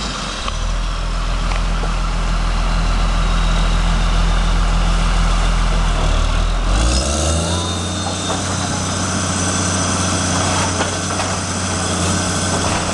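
Heavy diesel engine of a demolition machine running, a steady low drone that rises in pitch about seven seconds in and holds at the higher pitch.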